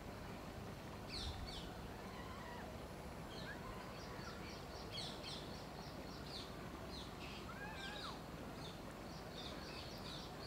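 Birds chirping: quick runs of short, high notes, with a few lower whistled notes in between, over a steady low background rumble.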